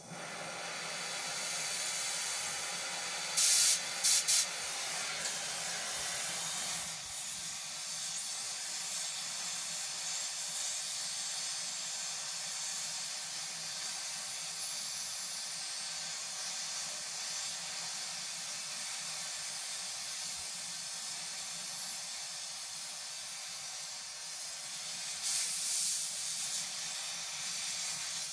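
Oxy-fuel gas torch flame hissing steadily while heating and cutting sheet steel, with short, louder blasts of hiss about three and a half seconds in and again near the end.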